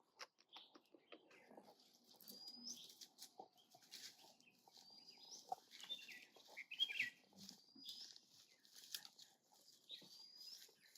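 Faint birdsong: a short, high rising whistle repeated about every two to three seconds, with a few scattered chirps between.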